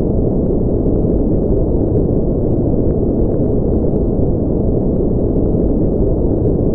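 A steady, unbroken deep rumbling noise at a constant level, with faint small clicks now and then.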